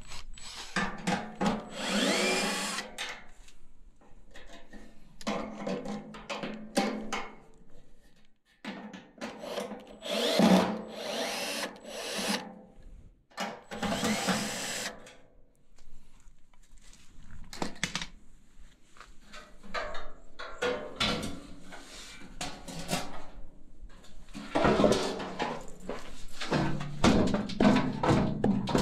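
Cordless driver running in several short bursts, a few seconds each with pauses between, backing out the 5/16 hex-head bolts that hold a furnace blower motor's mounting arms to the sheet-metal blower housing.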